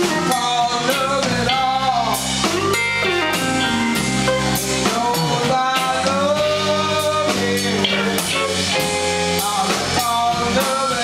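Live blues band playing: a woman singing lead over archtop electric guitar, bass and a drum kit.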